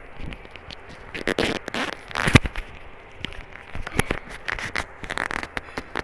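Handling noise as a wired earphone's in-line microphone and its cable are fitted against a T-shirt collar: irregular rustling of fabric and cable with sharp knocks, the loudest a little over two seconds in.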